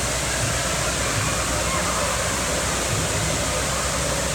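Steady rush of water in an indoor waterpark: wave pool surf washing up the beach entry and a mushroom fountain pouring, with faint crowd voices underneath.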